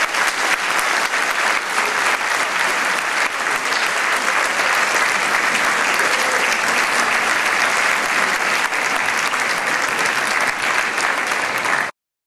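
A large audience applauding steadily with many hands clapping. It cuts off suddenly near the end.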